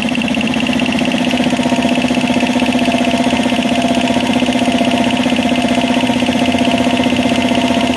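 5 HP Elgi two-cylinder belt-driven piston air compressor running steadily under load, pumping up its tank: a fast, even chugging pulse over a steady hum.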